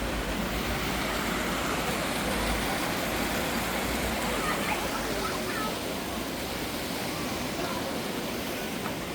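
Steady rushing of a waterfall, with faint voices in the background.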